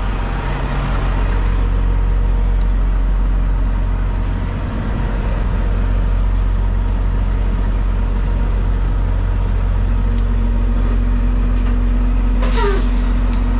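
Semi-truck driving, its engine a steady low drone under constant road noise. A steady higher hum joins about ten seconds in, and a short falling-pitched squeak comes near the end.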